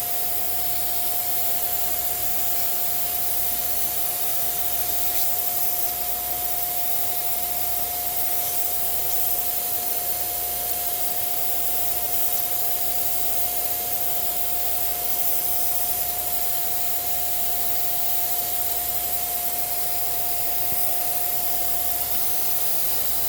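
A small electric air-moving appliance running steadily: a constant rush of air with a single unwavering whine from its motor, used to blow or suck dust out of a sewing machine being cleaned.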